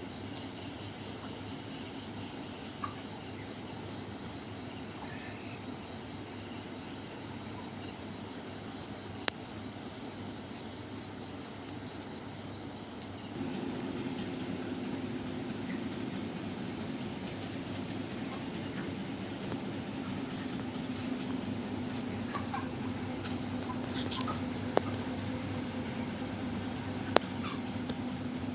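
Crickets chirping in continuous pulsing high-pitched trills. About halfway through, a steady low hum starts under them. A few sharp clicks are heard near the end.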